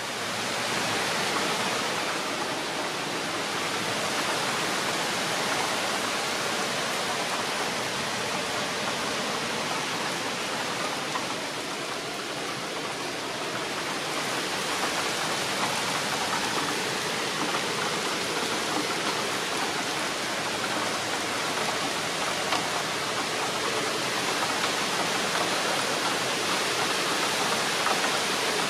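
Heavy rain falling in a steady downpour on dense trees, swelling up in the first second and then holding even.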